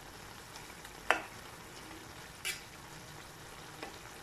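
Prawn and courgette curry sizzling steadily in a frying pan while a spatula stirs it gently, scraping and knocking against the pan three times, the sharpest about a second in.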